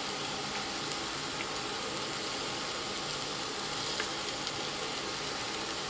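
Mashed potato and spices frying in oil in a steel pot, a steady sizzle, with a faint tap about four seconds in.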